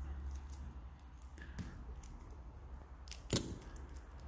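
Faint handling of an Invicta Speedway watch's stainless steel bracelet as fingers pick at the protective plastic film on its links, with a few light ticks and one sharper click a little over three seconds in.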